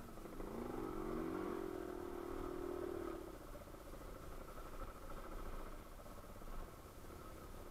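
Yamaha Serow 250's single-cylinder four-stroke engine revving up quickly and holding at higher revs for about three seconds, then easing off to a low steady running.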